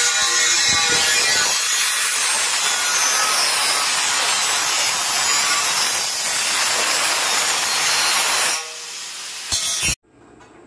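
Handheld angle grinder's disc grinding into a stainless steel handrail tube, a loud steady grinding noise. It drops off near the end, surges briefly once more, then cuts off abruptly.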